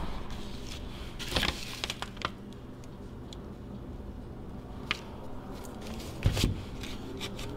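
Handling noise from a small-engine carburetor on a paper-covered workbench: a few scattered knocks and clicks as it is set down, picked up and turned over, the loudest a low thump about six seconds in as it is laid down. A low steady hum runs underneath.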